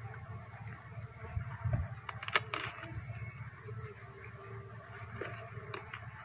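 A swarm of stingless bees (kelenceng, Trigona) buzzing around an opened wooden hive box: a low steady hum, with a steady high hiss above it. A single sharp knock comes about two and a half seconds in.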